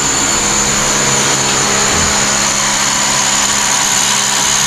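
A small engine or motor running steadily, with a constant high whine over a low hum.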